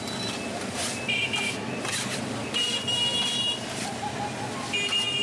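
Chicken sizzling on a flat iron griddle, with a metal spatula scraping and clacking against the hot plate a few times as the meat is tossed and chopped.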